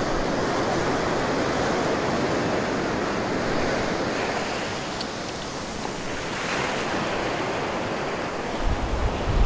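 Ocean surf washing onto the beach in a steady rush, with wind buffeting the microphone in low rumbles near the end.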